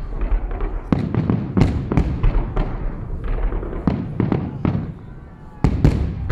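Fireworks display: shells bursting overhead in rapid, irregular bangs, with a short lull about five seconds in before a cluster of loud bangs.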